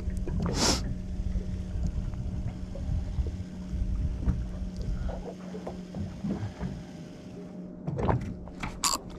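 A boat's engine humming steadily over a low rumble. There is a short hiss about a second in and a few sharp clicks near the end.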